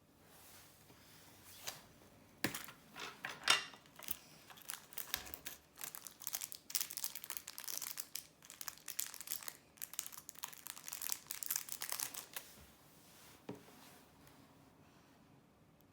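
Packaging crinkling as it is handled and opened, in dense irregular crackles that die away near the end, followed by a single click.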